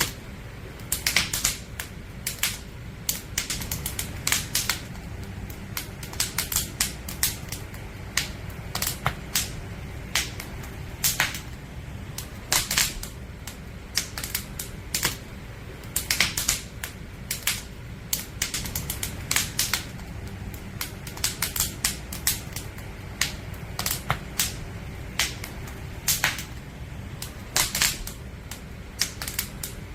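Firewood burning in a campfire, crackling and popping irregularly over a low, steady rumble of the flames.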